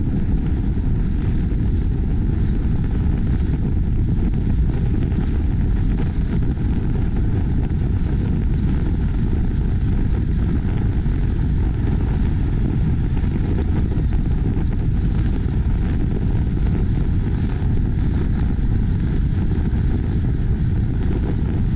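Steady low rumble of wind and road noise picked up by a GoPro mounted outside a moving car.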